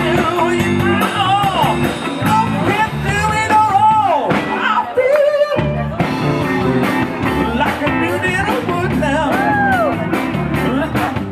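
Live rock band playing, with a singer's voice over guitar and a steady low accompaniment.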